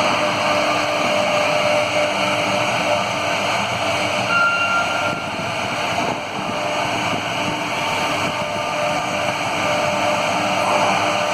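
CNC router machining a door, a steady, loud machine noise with a whining tone running through it. A brief higher whine comes in about four and a half seconds in.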